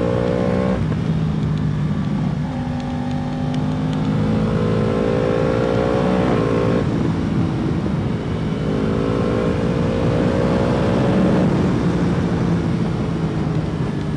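Yamaha R1's crossplane inline-four through its Akrapovic slip-on silencer, ridden hard. The engine note climbs steadily and drops sharply, about three times, with wind rushing over the onboard microphone.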